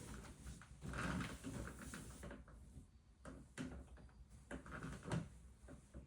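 IKEA bunk bed creaking and knocking irregularly as weight shifts on it, several separate creaks. This is the abnormal noise a repairman blamed on the slatted bed base, and it persisted after that base was replaced.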